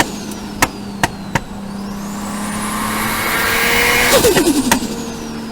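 Nissan R34 GT-R's RB26DETT twin-turbo straight-six revving up with a rising turbo whistle. On throttle lift about four seconds in, the turbos flutter in a quick falling chatter. A few sharp cracks are heard early on and once after the flutter.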